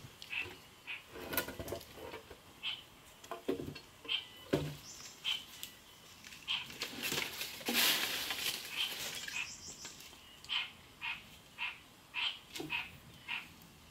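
Short, high chirping calls from a forest animal, repeating every second or so and coming faster in the second half. Among them are a few dull wooden knocks and a rustling swish a little before the middle as poles and a machete are handled.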